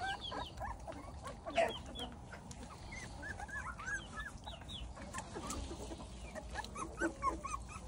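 A litter of young puppies squeaking and whimpering: many short, high-pitched cries overlapping, with one louder sound about one and a half seconds in.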